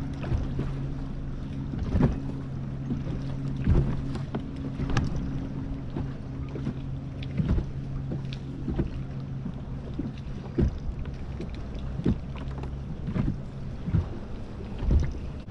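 A boat motor humming steadily, with scattered knocks and thumps on the hull; the hum drops away about two-thirds of the way through.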